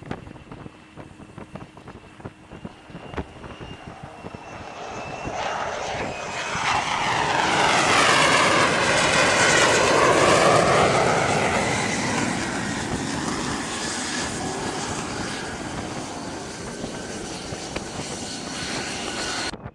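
F-35C fighter's F135 jet engine approaching and landing. A whine swells over several seconds into a loud rush, with a sweeping tone as the jet passes closest about halfway through, then runs on steadily at a lower level. It cuts off abruptly near the end.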